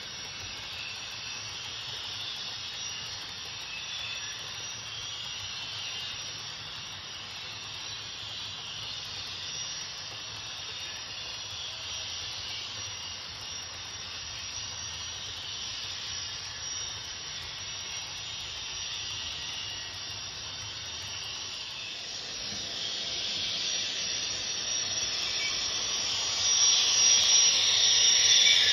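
Steady rushing hiss of a model Union Pacific gas turbine locomotive's sound unit, with freight cars rolling on the track; it grows louder over the last several seconds as the turbine unit comes close.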